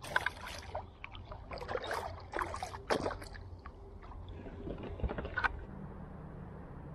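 Water splashing and handling noises as a caught zander is landed on an inflatable packraft: a run of irregular short knocks and splashes that dies away after about five seconds, leaving a faint low hum.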